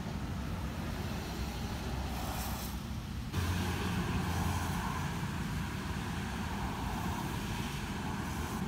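Steady low background rumble with a hiss over it, stepping up and getting a little louder about three seconds in.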